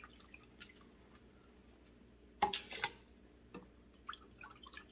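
Chicken stock pouring faintly from a carton into a glass measuring cup, trickling and dripping, with one brief louder gush of liquid about halfway through.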